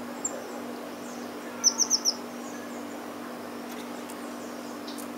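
A small songbird gives four quick, high chirps in a row a little under two seconds in, with a few fainter high notes later, over a steady low hum.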